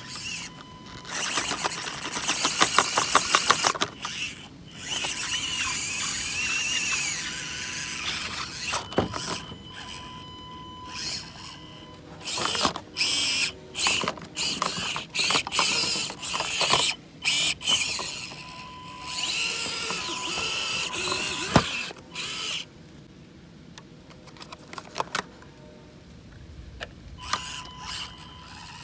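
Axial SCX24 micro RC crawler's electric motor and gear drive whining in stop-start bursts of a few seconds as it is driven, with a fast ratchet-like gear chatter; quieter from about three-quarters of the way through.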